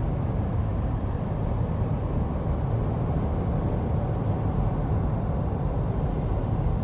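Steady road and wind noise inside a moving car at highway speed: a constant low rumble from tyres and wind that stays even throughout.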